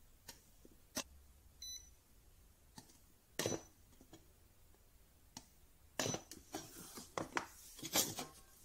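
Cheap DIY battery spot welder firing its handheld probes into 0.3 mm metal strip on a steel plate: a few sharp, scattered clicks, with a short electronic beep from the welder about one and a half seconds in. Near the end there is a quick run of crackling clicks as the welded strip is pulled up from the plate to test the welds.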